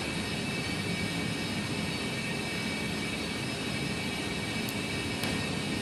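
Steady background hum and hiss throughout, with a few faint light clicks near the end from a pick working the pins of a padlock.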